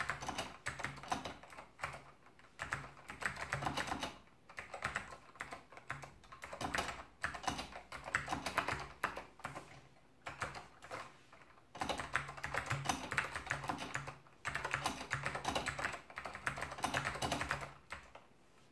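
Typing on a new-old-stock FK-727 keyboard with clicky Alps blue switches: rapid runs of sharp key clicks in bursts of a few seconds, broken by short pauses.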